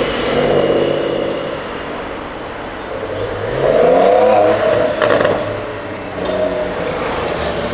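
Porsche 911 (992) twin-turbo flat-six accelerating away, its engine note dropping back then rising sharply about three seconds in to its loudest point, with smaller surges after.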